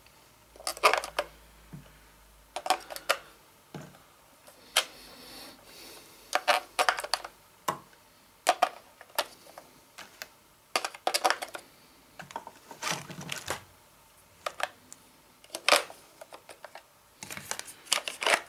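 AA batteries being pressed into the plastic battery compartment of a radio-control transmitter: a run of irregular sharp clicks and clacks, several in quick pairs, as the cells seat against the contacts and knock on the case.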